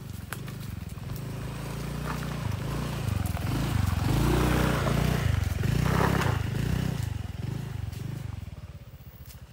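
Small motor scooter riding along a dirt track, its engine note rising and falling as the throttle is worked. It grows louder as it comes close and passes, then fades away near the end.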